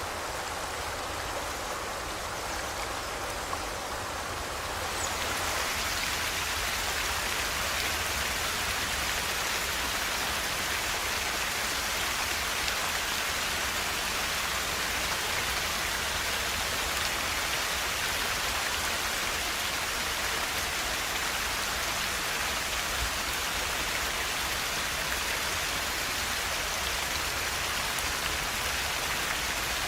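Steady rush of a river's flowing water, an even hiss with no pauses; about five seconds in it becomes brighter and a little louder, then holds steady.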